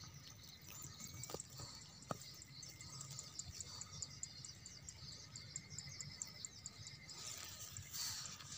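Faint, high-pitched insect chirping repeated several times a second, with a couple of soft clicks and a brief rustle near the end.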